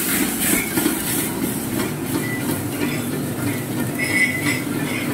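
Commercial high-pressure gas wok burner running at full flame, a steady roar, as the oil in the wok flares up, with sizzling frying onion and tomato and an occasional light clink of the steel ladle against the wok.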